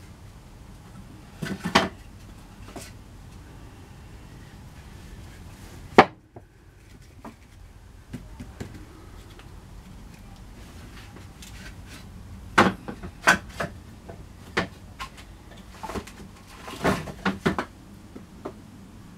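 Wooden pallet boards knocking and clattering as they are handled and set down, in scattered sharp knocks and short bunches of knocks, the loudest single one about six seconds in.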